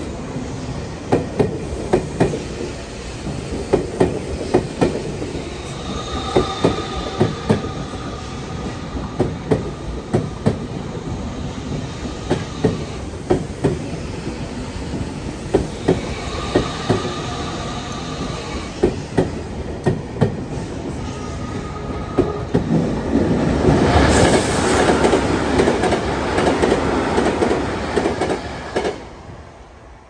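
Electric train rolling slowly over a level crossing, its wheels clicking in pairs over the rail joints, with short squeals from the wheels on the curve three times. About 23 seconds in comes a louder rushing noise for several seconds, which then dies away.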